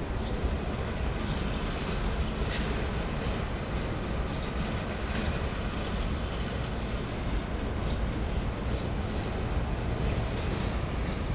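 Freight train of lumber-loaded flatcars rolling past: a steady rumble of steel wheels on rail, with a few sharp clicks now and then.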